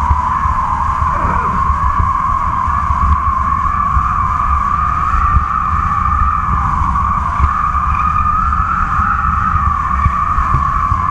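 Kite line humming in the wind: a steady whine that slowly wavers up and down in pitch, over heavy wind rumble.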